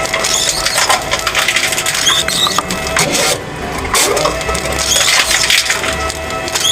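Steady crunching and scraping with many small clicks throughout, as of hard loose material being dug, pushed or crushed.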